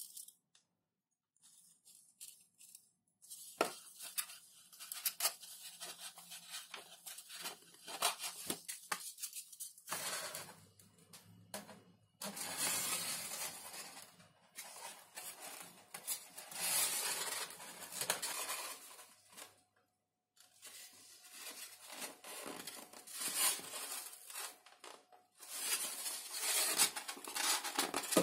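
Pieces of XPS foam (Depron) handled and pressed together by hand, foam rubbing and scraping against foam in irregular strokes with small clicks, broken by brief silent gaps.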